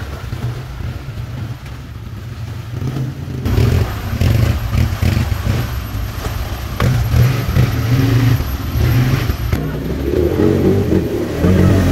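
Quad bike engines running and revving as they are ridden through a shallow muddy stream, with water splashing under the tyres. The sound gets louder and noisier about three and a half seconds in.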